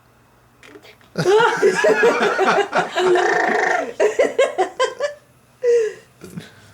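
Baby laughing: a long run of high, gurgling laughter starting about a second in, then several short bursts of giggles.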